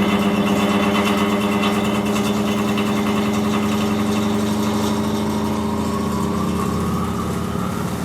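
Large condenser fan of a Cellar King bar chiller running loud on shot bearings: a steady droning hum with a rapid flutter through it. The owner takes the bearings to be worn out, one perhaps missing altogether.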